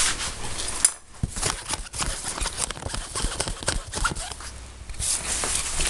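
A ferret scrambling in a fabric play tunnel: the fabric rustles for about the first second, then a quick, irregular run of clicks and soft knocks.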